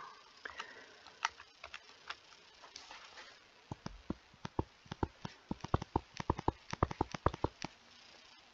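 Light clicking taps of a stylus writing on a tablet screen: a few scattered taps, then a quick run of them from about four seconds in as a line of figures is written.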